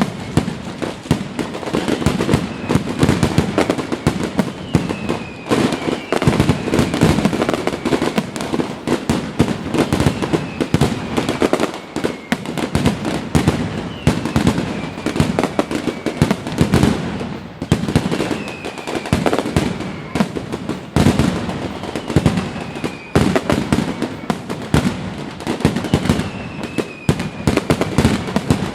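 Aerial fireworks display: a continuous barrage of overlapping booms and crackling bursts, with deep thuds the loudest part.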